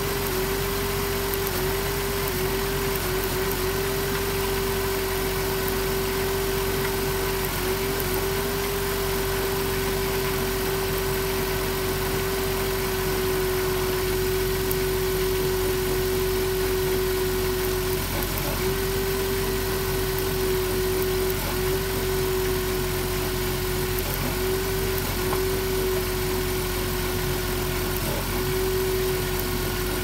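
2007 Dodge Grand Caravan's V6 engine idling rough with an intermittent misfire, which is traced to a spark plug wire arcing through a damaged boot. A strong steady whine runs over the idle, wavering briefly a few times.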